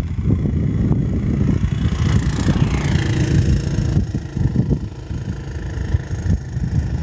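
Light aircraft's piston engine running as it goes by, with a falling sweep about two to three seconds in, over a rough rumble.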